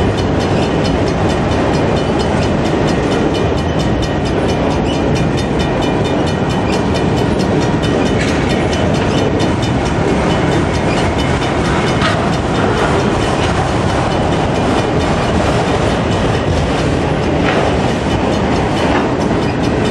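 Freight train's autorack cars rolling past close by: a steady, loud rumble and clatter of steel wheels on the rails, going on without a break.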